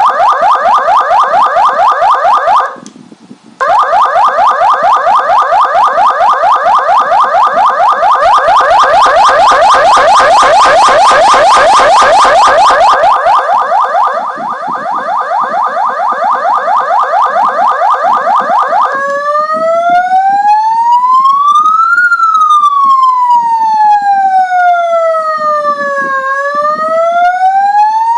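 YHAAVALE 6203 100W electronic siren sounding through its speaker. A fast warbling tone cuts out briefly about three seconds in and then resumes. Two-thirds of the way through it switches to a slow wail that rises for a few seconds, falls and rises again.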